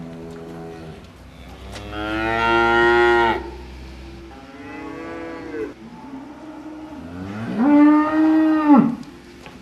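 A cow mooing: three long, drawn-out moos, the first and last the loudest.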